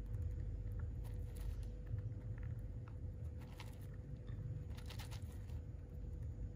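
Hamster nibbling and crunching dry food mix of seeds and dried vegetable flakes: soft crisp crackles and clicks in short clusters, the busiest about five seconds in, over a faint steady hum.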